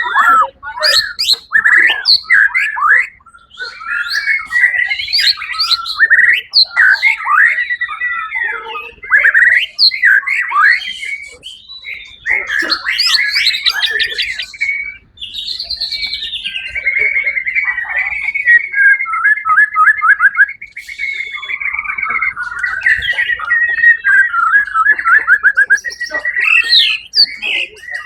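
White-rumped shama singing a long, varied song of loud whistled phrases, switching to rapid buzzy trills in the second half.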